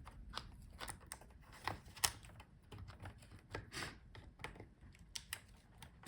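Irregular small plastic clicks and taps of ribbon-cable connector latches being flipped open and cables pulled from a laptop motherboard, with one sharper click about two seconds in.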